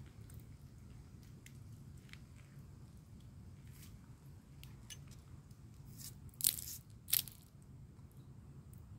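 Small crackles and rustles of grass roots and debris being picked off a fishing magnet by hand. Two louder, short scraping rustles come about six and seven seconds in, over a steady low background rumble.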